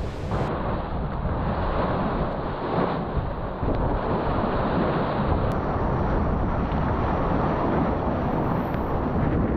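Wind buffeting the microphone over the steady rush of water and spray along the hull of a Mini 6.50 racing sailboat moving fast through rough seas.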